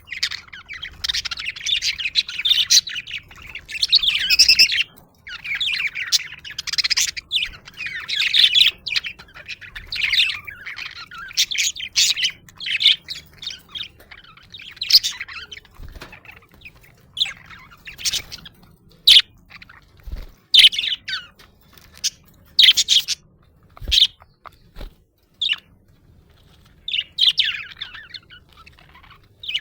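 Budgerigars chirping: a dense run of high chirps for about the first half, then sparser, separate short calls.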